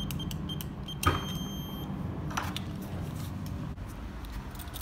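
Electronic door-entry keypad beeping as a code is keyed in: a few short high beeps, then a longer beep with a knock about a second in. A steady low hum runs underneath.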